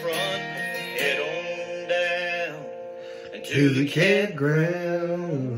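A man singing a song with instrumental accompaniment in long, held notes, played back from a tablet's speaker.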